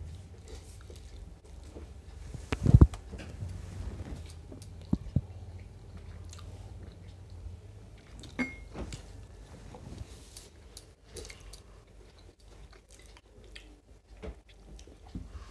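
Close-up eating sounds: chewing and wet mouth noises and fingers squishing and picking at rice and fish curry, with small clicks against the plates. A loud knock a little under three seconds in, and two shorter sharp ones a couple of seconds later.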